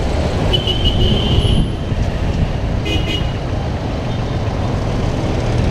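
Bajaj Pulsar 200NS single-cylinder motorcycle riding in city traffic, heard as a steady low rumble of engine and riding noise. A high-pitched vehicle horn toots about half a second in and lasts about a second, and a shorter toot comes about three seconds in.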